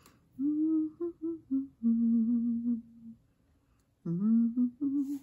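A woman humming a tune to herself in several held notes, then a second, shorter phrase about four seconds in.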